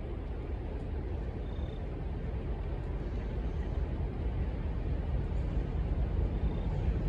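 Low rumble of an approaching train, led by an EMD SW900 diesel switcher, growing steadily louder.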